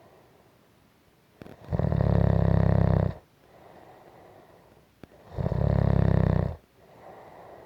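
Steady, rhythmic snoring: two loud fluttering snores about three and a half seconds apart, each lasting over a second, with softer breathing in between.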